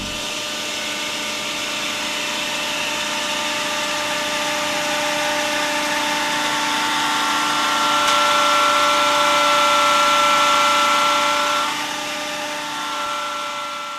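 Diesel-driven hydraulic power unit running under load during a pump lockup test, the pump's blades blocked so the hydraulic system builds pressure. A steady high hydraulic whine sits over engine noise; it swells toward its loudest in the second half and then drops off near the end as the pressure eases.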